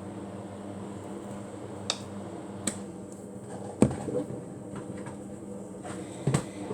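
A few sharp clicks and knocks, four in all with the loudest about four seconds in, over a steady low hum.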